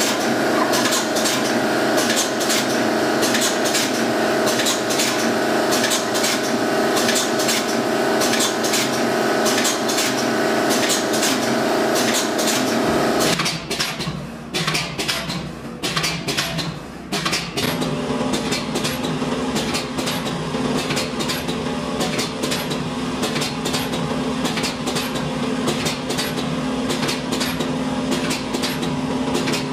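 Multi-lane vertical stick-bag filling and sealing machine running: rapid, repeated metallic clacking from the sealing and cutting mechanism over a steady motor hum. The sound drops and turns patchy for a few seconds about halfway through, then the clacking resumes over a steadier, lower hum.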